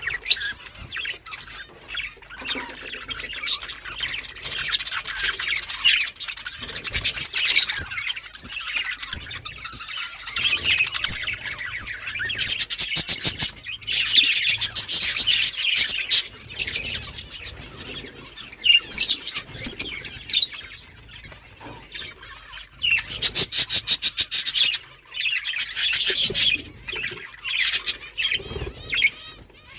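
Pet budgerigars chattering and chirping continuously, with several stretches of fast, buzzy trilled warbling.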